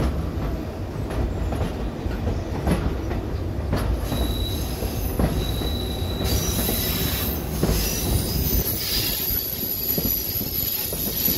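White Pass & Yukon Route narrow-gauge passenger train rolling downgrade, heard from the side of a car: a steady rumble of wheels on rail with scattered knocks over the joints. About four seconds in, a thin high wheel squeal starts and lasts about two seconds.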